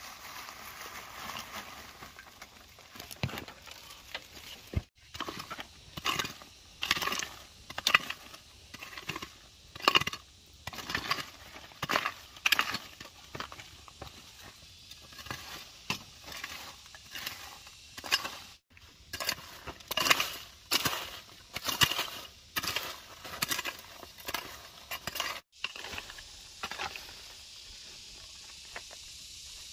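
Hand garden tool working dry ground and vegetation: repeated crunching, scraping strokes about one a second, broken off abruptly three times.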